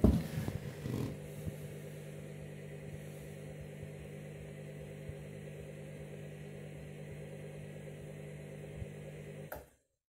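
Candy front-loading washing machine running its bleaching cycle, the motor turning the sudsy drum with a steady hum. A few knocks come in the first second, and the sound cuts off suddenly near the end.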